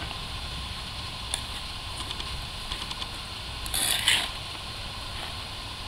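Hand trowel digging and scraping in soil, with a few small clicks and one louder scrape about four seconds in.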